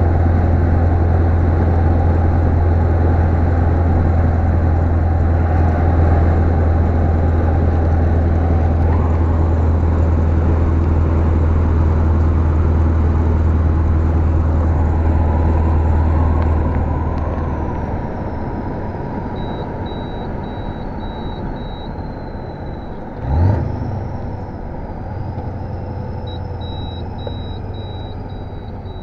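Scania 143-450's V8 diesel engine heard from inside the cab, running steadily under load at cruising speed. The engine note falls away a little past halfway through as the truck eases off. A short sharp burst with a quick rise in pitch comes about three-quarters of the way in.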